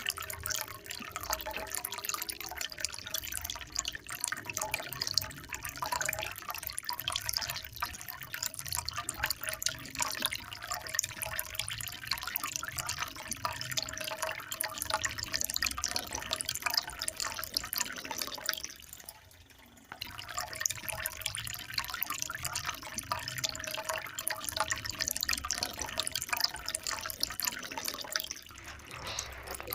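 Water trickling and splashing steadily, a dense patter of small droplet sounds, dipping briefly about nineteen seconds in.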